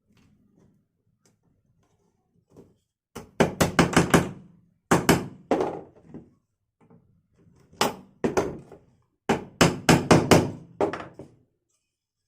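Hammer tapping on wooden bird-cage parts in four quick runs of sharp strikes, each run lasting about a second.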